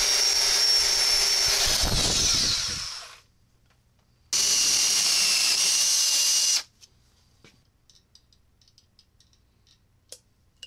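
Electric drill boring a hole through an iron pipe cap held in a vise, in two runs: the first winds down about two and a half seconds in, the second starts about four seconds in and stops abruptly about two seconds later. Faint light clicks follow near the end.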